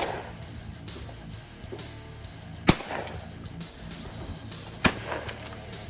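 Two pump-action shotgun shots about two seconds apart, each a sharp blast with a short echoing tail, over background rock music.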